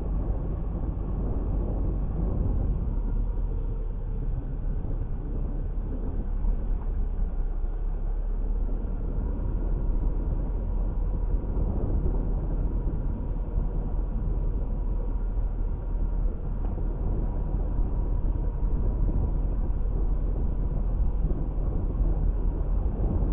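Subaru car driving along, a steady low engine and tyre rumble that runs on evenly throughout.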